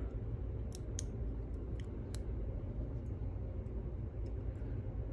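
A few small, sharp metallic clicks of tweezers and tiny lock parts as springs and pins are taken out of a pin-tumbler lock cylinder, over a steady low hum.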